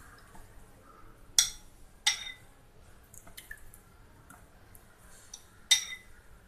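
A steel spoon clinking sharply three times, about a second and a half in, two seconds in and near the end, with smaller ticks and soft drips between, as a thick milk mixture is spooned into a plastic kulfi mould.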